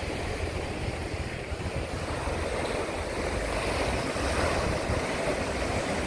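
Sea surf breaking and washing against the shoreline rocks, a steady rushing that swells slightly, with wind rumbling on the microphone.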